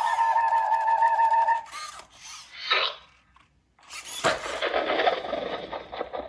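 Loona robot dog's synthesized electronic vocal sounds: a held, slightly wavering tone for about a second and a half, a quick falling whistle about three seconds in, then after a short gap a rougher warbling chatter.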